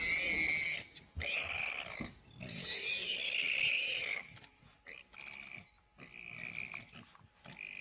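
An animal crying out in a series of drawn-out, high-pitched calls: three loud ones, then fainter, shorter ones from about four seconds in.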